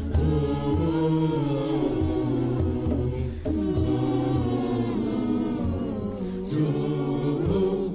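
A cappella choir singing in close harmony over a deep, sustained bass line.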